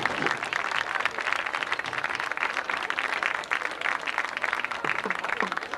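Crowd applauding, a steady, dense patter of many hands clapping.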